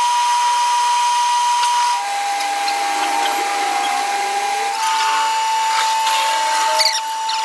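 Power tool motor running with a steady high whine. Its pitch drops about two seconds in and rises a little near the five-second mark.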